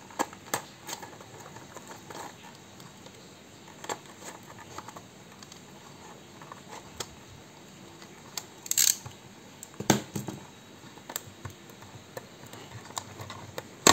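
Hands handling a small shrink-wrapped cardboard box: scattered light clicks and plastic crinkles as the wrap is worked loose. There is a louder crinkle about nine seconds in and a sharp knock about ten seconds in.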